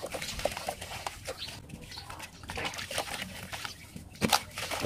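Hands crushing and crumbling pure cement chunks in a tub of water: irregular gritty crunching and splashing, with crumbs and powder falling into the water and one louder sharp burst near the end.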